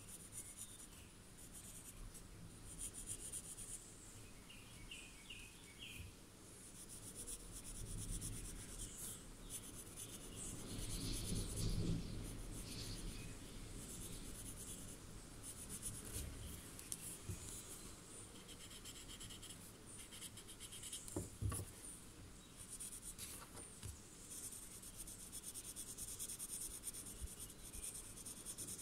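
Graphite pencil scratching on a paper tile in quick, short shading strokes, with a louder rub of hand and paper near the middle and a single tick later on.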